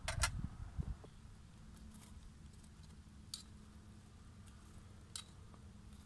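Three light metallic clicks spread a couple of seconds apart as a metal kebab skewer is turned on its metal grill stand over the embers.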